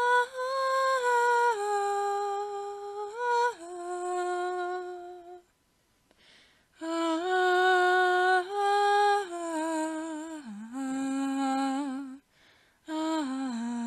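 Someone humming a slow tune in long held notes that step up and down. There are three phrases, with short breaks between them.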